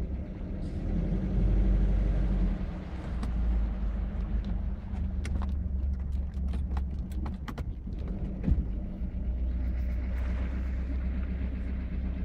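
1972 MerCruiser 3.0 L (181 cu in) 140 hp inline-four sterndrive engine running with a knock, its note swelling louder for a moment about a second in, with a few sharp clicks through the middle. The owner expected a bad number-four rod bearing but found the crank and bearings good, so the knock's cause is unknown.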